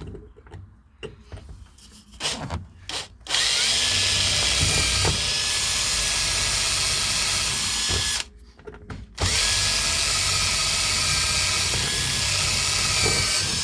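Electric drill with an 1/8-inch bit drilling into a car's ignition lock cylinder. A few light clicks come first while the bit is set in place, then the drill runs for about five seconds, stops briefly, and runs again for about four seconds. The bit got loose and did not go in as deep as meant, in the driller's own judgement.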